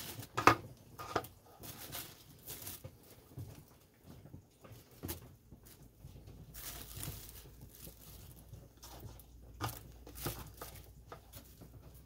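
Thin plastic grocery bag crinkling and rustling as hands rummage through the fireweed petals inside it, in short irregular rustles with a few sharper crackles.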